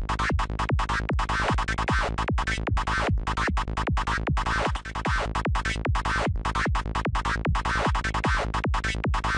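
Distorted dark FM-style psytrance lead synth patch from Native Instruments Massive, playing a fast, even run of short notes. Each note starts with a quick downward pitch drop.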